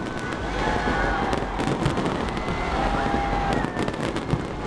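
Fireworks going off: a dense run of sharp pops and crackles, many bangs close together.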